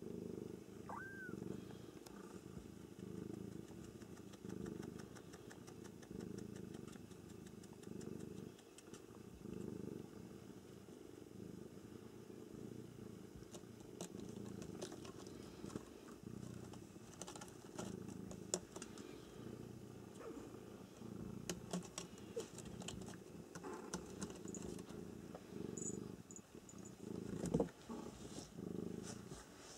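Cat purring steadily and close by. There is a brief high squeak about a second in, scattered small clicks and scratches from about halfway on, and one louder knock near the end.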